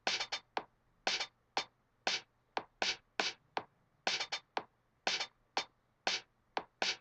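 Audiotool's Machiniste software drum machine playing a randomised pattern: short, sharp, crisp percussion hits with little bass, in an uneven rhythm of two to four hits a second.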